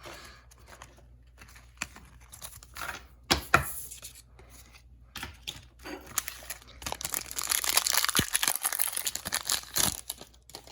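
Foil Pokémon booster pack being crinkled and torn open: scattered crackles and a few sharp snaps, then a long ripping tear of the wrapper about seven seconds in that lasts some three seconds.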